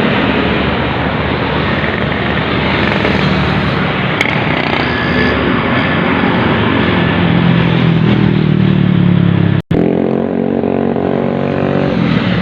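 Loud roadside traffic passing close by: engines and tyre noise, with a heavy engine note building from about six seconds in. The sound drops out for an instant near the ten-second mark.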